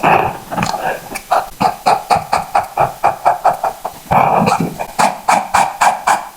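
Rapid, rhythmic colouring strokes of a drawing tool scratching on paper, about four strokes a second, with two longer scrubbing passes at the start and about four seconds in.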